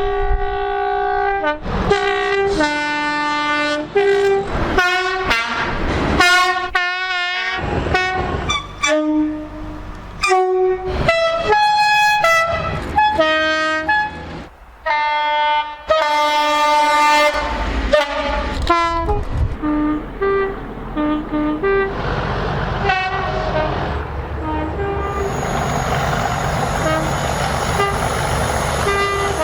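A rapid series of UK train horn blasts, cut one after another: short pitched tones, often two notes high then low, some sliding upward. In the latter part the loud rush of a moving train runs under shorter horn toots.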